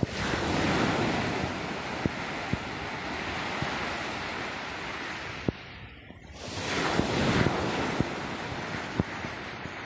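Sea waves washing onto a shore in two swells, the second building about six and a half seconds in, with wind buffeting the microphone and a few light knocks.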